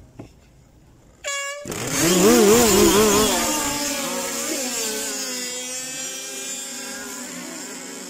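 A short horn-like beep, then remote-control powerboat motors start up together, loud at first with a pitch that wavers up and down, then settling into a steady run that slowly fades as the boats move off.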